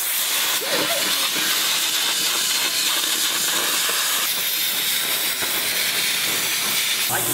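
Hand-held plasma cutter cutting through a car's sheet-metal body panel, giving a steady hiss.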